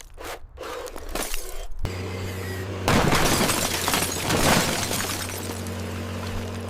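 Shattering and crunching as a toy car is smashed, loudest from about three seconds in, over a steady low hum that begins about two seconds in.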